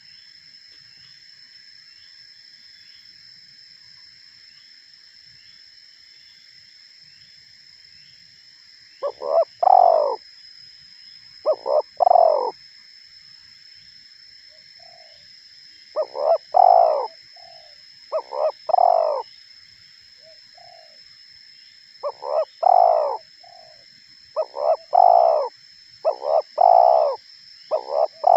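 Spotted dove cooing: repeated two- and three-note coo phrases, starting about nine seconds in and coming every two to three seconds. Behind it runs a steady high-pitched insect drone.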